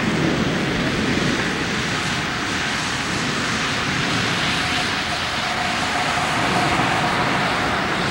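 Steady rushing wind buffeting the microphone outdoors under a storm, with a faint steady tone for a couple of seconds midway.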